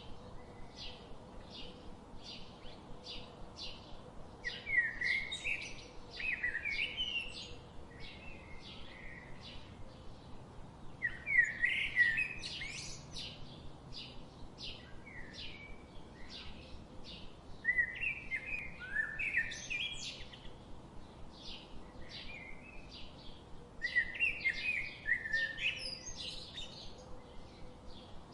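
Songbirds singing: one bird repeats a loud, warbling song phrase about every six or seven seconds, while another keeps up short, high chirps about twice a second.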